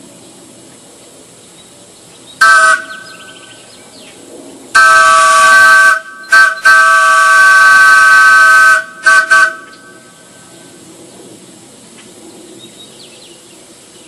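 Large wooden Ford chime train whistle blown on about 40 PSI, sounding a chord of several tones with a rushing hiss. A short toot, then two long blasts with a brief toot between them, then two quick toots near the end.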